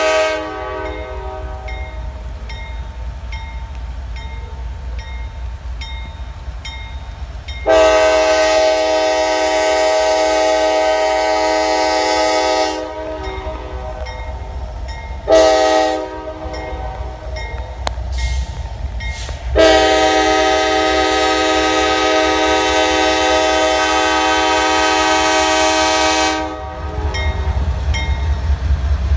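Diesel locomotive multi-chime air horn sounding the grade-crossing pattern: a blast just ending, then a long blast, a short one and a long one. The locomotive's diesel engine rumbles steadily underneath, louder near the end as the train gets under way.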